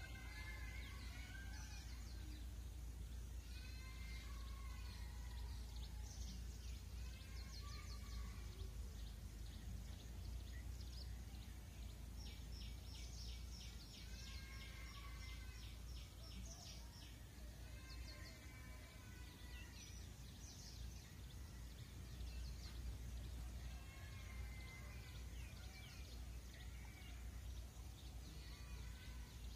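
Small birds chirping and calling on and off, with a fast, even trill lasting a few seconds about twelve seconds in, over a steady low hum.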